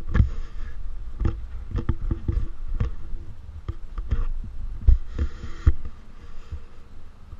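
Low throbbing rumble with irregular knocks and two short gusts of hiss: wind buffeting and handling noise on the microphone of an action camera swung about on a pole.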